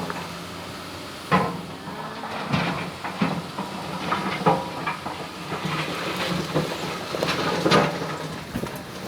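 Excavator engine running steadily while its bucket shifts river stones, with irregular knocks and clatters of rock on rock and on the steel bucket.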